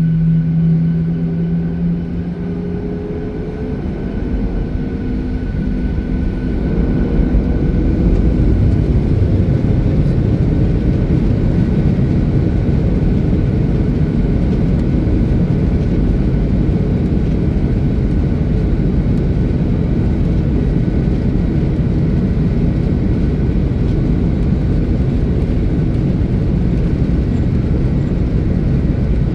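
Jet airliner engines spooling up, a whine rising in pitch over the first several seconds, then a loud steady rush of engine and airflow noise heard inside the cabin during takeoff.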